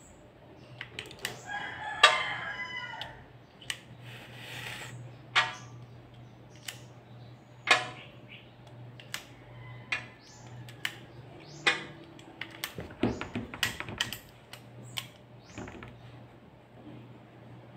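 Sharp clicks and clacks of an ASG Dan Wesson 715 airsoft revolver being handled as its shells are loaded into the cylinder, with a quick flurry of clicks about thirteen seconds in. A rooster crows about two seconds in, over a steady low hum.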